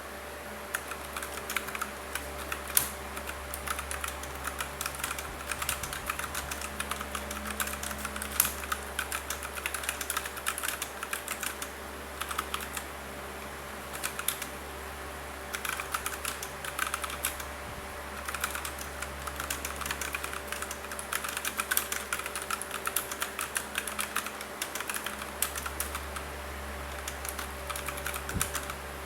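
Typing on an Aula F2088 mechanical keyboard with brown switches: rapid keystroke clicks in runs, pausing briefly a couple of times.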